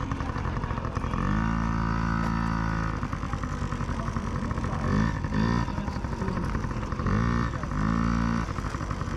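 Dirt bike engine revved up and let back down four times, each rise in pitch held briefly then falling away, over a steady low engine drone.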